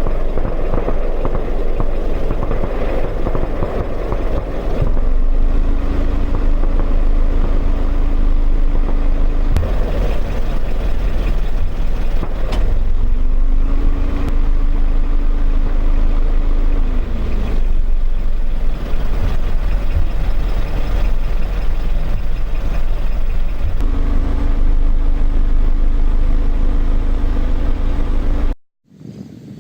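Waterfall rushing with heavy wind rumble on the microphone. A steady motor vehicle engine hum comes in three times, the second dropping in pitch as it fades. The sound cuts off suddenly near the end.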